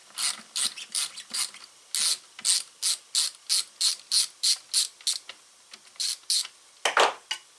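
Fine-tooth ratchet wrench clicking in short rattles on each back-swing, about three a second, as it backs out a Torx screw on a chainsaw, with a brief pause and one louder clack near the end.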